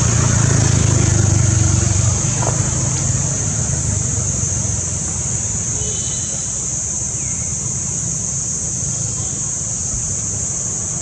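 A low, engine-like hum, strongest for the first two seconds and then easing, under a steady high hiss. A couple of faint short high chirps come about six seconds in.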